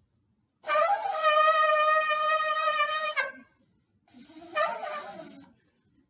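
Shofar blown as an alarm or battle cry: one long, steady blast of about two and a half seconds, then a shorter, uneven blast about four seconds in.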